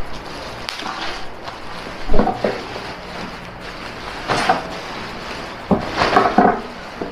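Bubble wrap and plastic bag rustling and crinkling as a package is unwrapped by hand, with several sharper crackles or knocks. The loudest is a thump about two seconds in.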